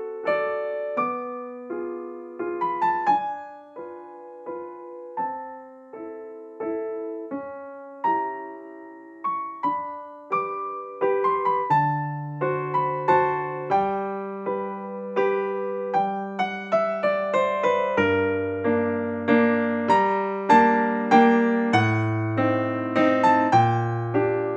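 Background piano music: a gentle melody of single struck notes, with lower bass notes joining about halfway through.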